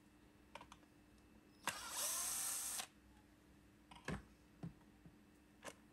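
Cordless drill-driver running for about a second, its motor pitch rising as it spins up, driving out a T15 Torx screw from the vacuum's plastic ball housing. A few light knocks and clicks follow as the drill is set down and the ball is handled.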